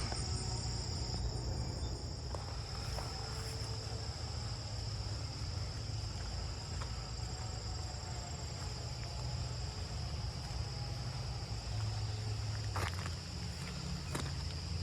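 A steady, high-pitched chorus of insects such as crickets trilling, over a constant low rumble, with a couple of faint ticks near the end.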